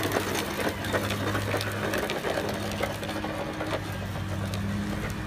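Hard plastic tricycle wheels rolling down a concrete ramp, giving a fast, continuous rattle over a steady low hum.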